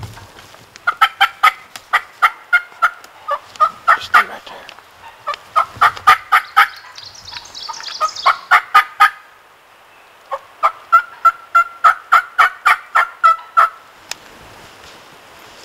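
Wild turkeys yelping in several runs of short, evenly spaced notes, about four a second, with brief pauses between the runs.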